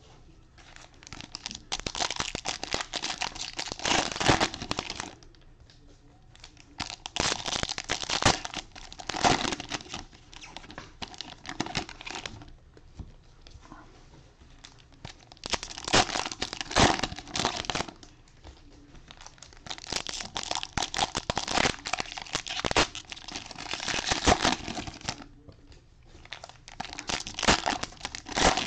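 Cellophane wrappers of trading-card cello packs being torn open and crumpled by hand, in crinkling bursts of a few seconds with short quiet pauses between.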